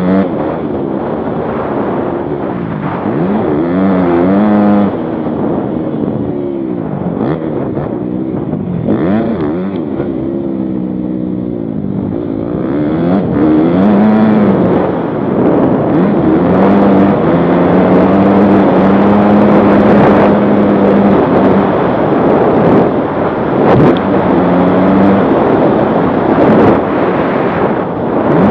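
Motocross bike engine revving up and dropping off again and again as the rider accelerates, shifts and backs off around a dirt track, with a few sharp knocks along the way. It runs harder and louder through the second half.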